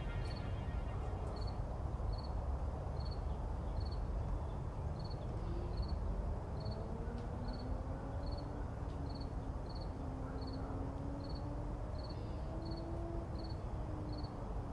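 Night ambience after the music stops: a steady low rumble with a cricket chirping regularly, a short high chirp a little more than once a second. Faint, slowly gliding tones sound in the background.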